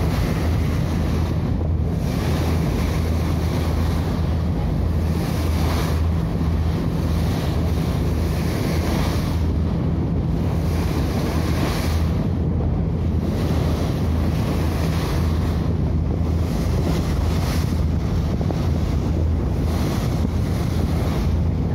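A whale-watching boat's engine running with a steady low drone, with wind buffeting the microphone and water rushing past the hull.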